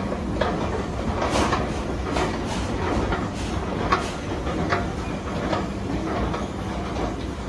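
Escalator running under load: a steady mechanical rumble and hum, with repeated clacks from the moving steps.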